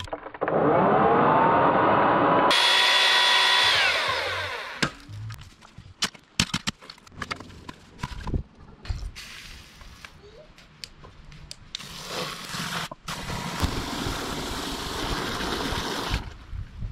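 Petrol earth auger engine revving up to a steady high run and then winding down as the auger is lifted out of a post hole. Scattered knocks and scuffs of digging follow, then a few seconds of garden-hose spray hissing into the hole that stop abruptly near the end.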